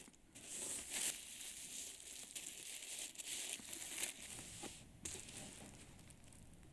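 Plastic shopping bag crinkling and rustling as it is handled, with a few sharper crackles, fading out near the end.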